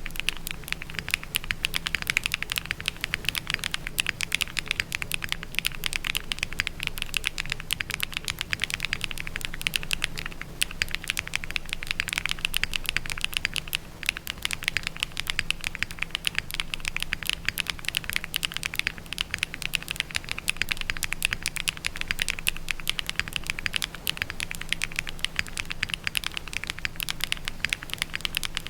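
Continuous fast typing on a Neo60 CU mechanical keyboard with Keygeek Sea Salt Taro switches, KBS 1950s doubleshot ABS keycaps, a PP plate and full foam: a steady stream of keystroke clacks.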